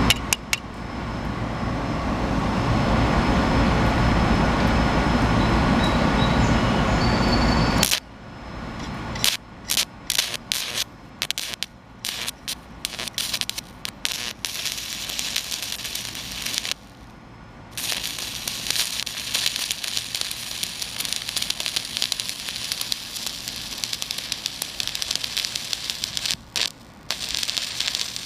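Stick-welding arc of a 3/32 308L stainless steel electrode running at about 45 amps DC electrode positive: a crackling, sputtering hiss that drops out briefly a few times. For the first eight seconds or so a louder, rumbling noise covers it.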